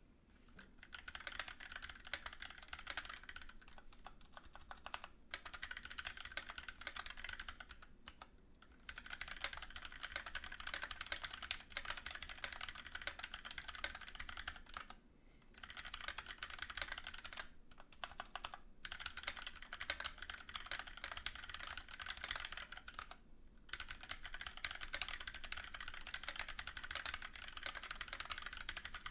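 Fast typing on a Keychron K6 mechanical keyboard with Gateron Brown switches: rapid key clacks in long runs, broken by several short pauses.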